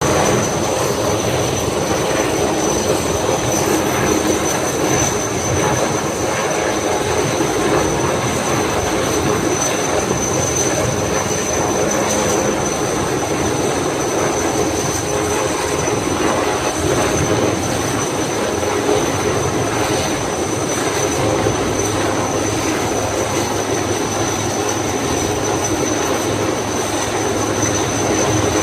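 Steady roar of fast-flowing floodwater, with a thin high tone held over it.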